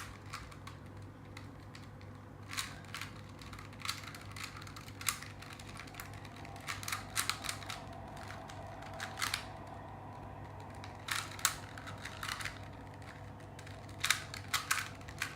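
2x2 Rubik's cube being turned fast in a speed solve: irregular sharp plastic clicks and clacks as the layers snap round, often several in quick succession.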